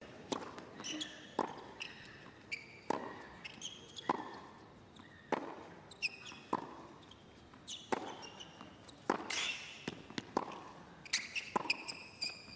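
Tennis ball bouncing on a hard court, one sharp bounce about every second, with short high squeaks of shoes on the court surface.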